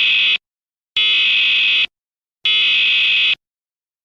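Emergency broadcast alert tone: loud electronic beeps, each just under a second long, repeating about every one and a half seconds, as the attention signal before an emergency broadcast announcement.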